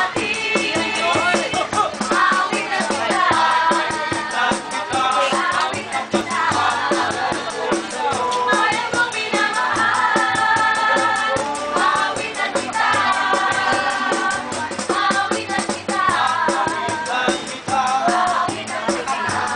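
A group of waiters and cooks singing together in chorus, accompanied by acoustic guitars strummed in a fast, steady rhythm.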